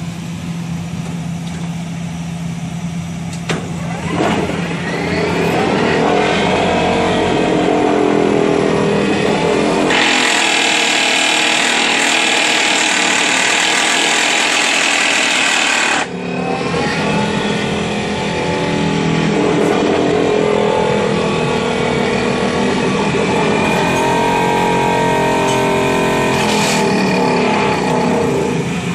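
Excavator diesel engine and hydraulic vibro hammer running with the hammer held up in the air: the engine hums steadily, then the hammer spins up with rising pitch about four seconds in. It runs at full vibration, loudest from about ten to sixteen seconds in, cuts off suddenly, then runs again and winds down with falling pitch near the end.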